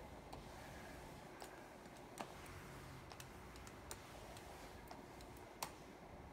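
Quiet room with a few scattered light clicks and taps, the sharpest about five and a half seconds in.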